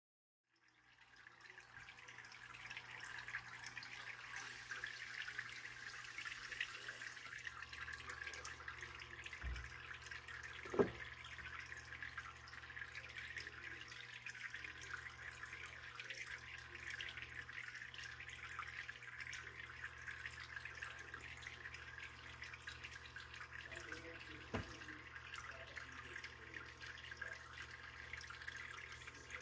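Aquarium water trickling and splashing, fading in during the first two seconds, over a steady low hum. A few sharp clicks, the loudest about eleven seconds in, from the plastic filter parts being handled.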